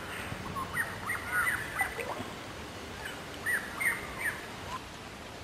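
Wild birds calling in trees: short, quick chirps and whistles in two bouts, over a steady outdoor hiss.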